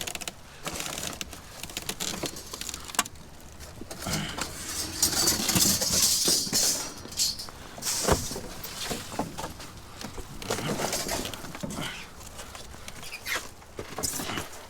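Rummaging through a pile of wet cardboard and scrap: uneven rustling and scraping, with scattered knocks and one sharp knock a little past the middle.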